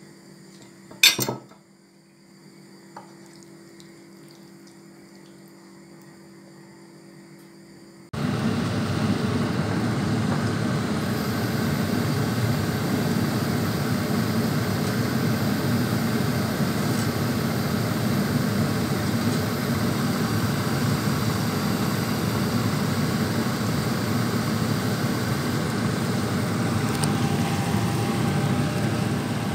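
A utensil clinks sharply against the pan about a second in, then there is only a faint hum. About eight seconds in, a loud steady sizzle of chicken and peppers cooking in curry sauce in a frying pan starts abruptly.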